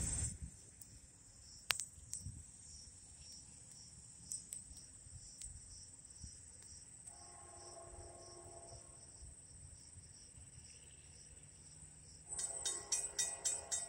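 Insects, crickets or similar, chirring steadily in a high pulsing trill. About halfway a faint chord of steady tones sounds for about two seconds, and near the end a louder rhythmic ringing with quick repeated strikes begins.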